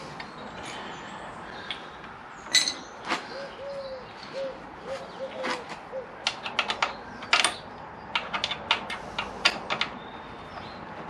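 Light metal clicks and taps as bolts and brackets are handled and bolts are started by hand into a motorcycle's footpeg hanger, coming in quick clusters in the second half. A few short squeaks come about halfway through.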